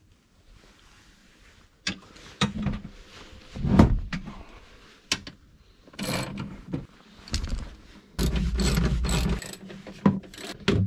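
Hand ratchet wrench with an E14 Torx socket clicking in short spells as it loosens the seat-mounting bolts, the longest run of fast clicks about eight seconds in, with a few sharp knocks between.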